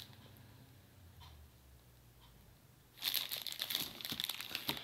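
Packaging wrap crinkling as it is handled and pulled open, starting about three seconds in.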